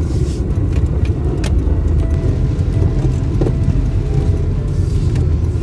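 Steady low rumble of a car's engine and tyres, heard from inside the cabin while driving, with a few faint clicks.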